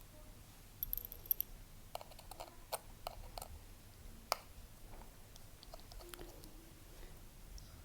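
Small, scattered clicks and taps of tools and parts being handled on an iPhone 7 Plus opened for screen replacement: a quick run of bright, ringing ticks about a second in, then irregular single clicks, the sharpest past four seconds.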